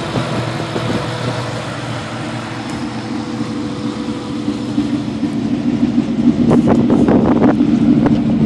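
2004 Ford SVT Cobra's supercharged 4.6-litre V8 idling steadily, growing louder over the last few seconds.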